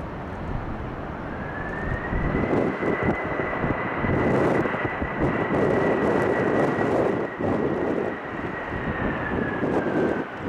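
Boeing 767-300 airliner's jet engines on the runway: a broad roar that swells a couple of seconds in, with a high engine whine that rises, holds steady, then falls away near the end.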